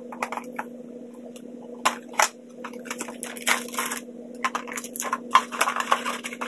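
Cardboard box and plastic packaging of a children's tablet being cut with scissors and pulled apart: scattered clicks, snips and crinkling rustles, busier in the second half, over a steady low hum.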